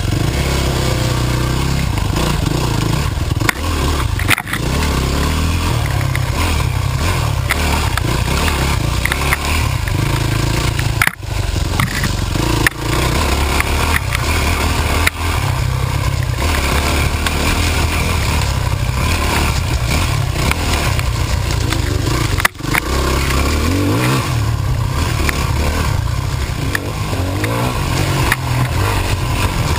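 Yamaha dirt bike engine running hard along a rough trail, revving up and down with the throttle and briefly dropping off a few times, with clattering and scraping from the bike over rocks and brush.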